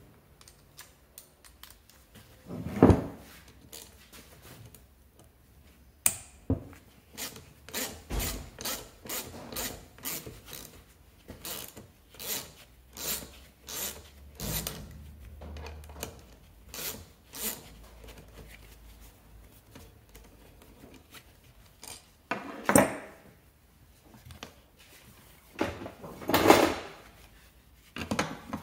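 Hand work on a dismantled scooter engine's transmission side on a wooden workbench. A loud knock, then a run of short rubbing, scraping strokes about two a second for some ten seconds, then two more knocks near the end.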